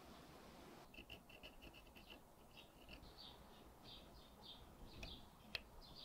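Faint, short scraping strokes of a small hand file on a tiny watch potence: a quick run of strokes starting about a second in, then slower, spaced ones, with one sharp click near the end.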